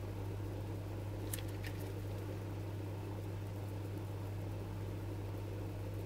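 Steady low hum with a faint hiss, like room tone. There are two faint light clicks about a second and a half in.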